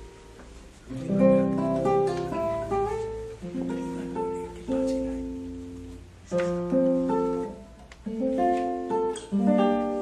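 Acoustic guitar music: plucked chords and notes that ring out and fade, with a new phrase every two to three seconds.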